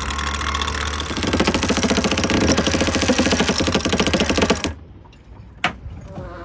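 Electric sailboat winch running under load, with rapid, even clicking from its pawls over a steady motor hum. It stops abruptly about four and a half seconds in, and one sharp click follows about a second later.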